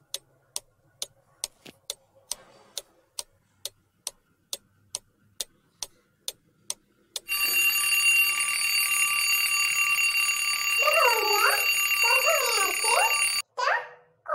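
Countdown-timer sound effect: a clock ticking about twice a second, then about seven seconds in an alarm-clock bell starts ringing loudly, signalling that the answer time is up. A warbling up-and-down sound joins the ringing for its last couple of seconds before it cuts off.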